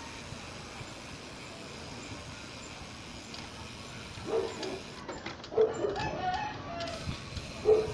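Rooster crowing a few times, starting about halfway through, over a steady rush of wind and road noise from a moving bicycle.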